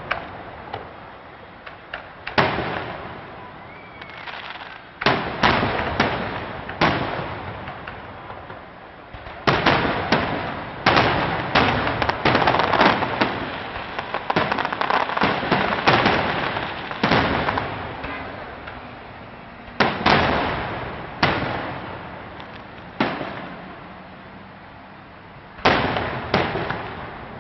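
Aerial fireworks shells bursting overhead in a run of sharp bangs, each trailing off over a second or two. The bangs come thickest in a dense barrage from about ten to seventeen seconds in, with quieter gaps before and after.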